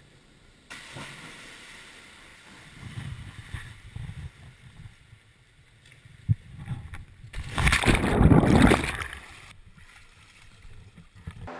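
Water splashing and sloshing in an indoor training pool as crew go into the water beside an inflatable lifeboat, with a sharp knock about six seconds in. About eight seconds in comes a loud rush of water lasting about two seconds, as the lifeboat is tipped over in a capsize drill.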